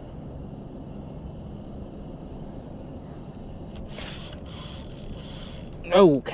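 Spinning reel being cranked, its gears making a steady low whir. About four seconds in, the drag starts paying out line with a high buzz for about two seconds as a hooked fish pulls.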